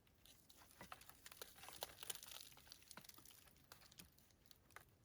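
Faint crackling and rustling of moss being handled and stuffed into gaps in a stick shelter wall, a string of small irregular crackles that thickens about two seconds in.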